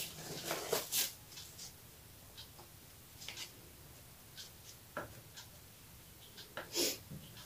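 Clear plastic bag crinkling and rustling as chocolate cookies are taken out of it, with light clicks as cookies are set down in a glass baking dish. Short scattered crackles, loudest about a second in and near the end.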